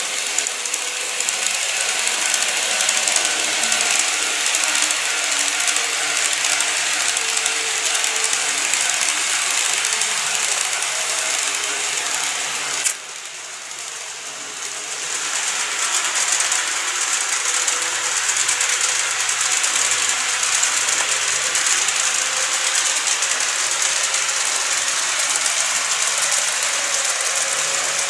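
N-gauge model electric trains, a 209 series set and an E259 series Narita Express, running on the track: a steady, dense mechanical rattle of wheels over rail joints and small motors. It drops suddenly about 13 seconds in and builds back up over the next two seconds as a train approaches.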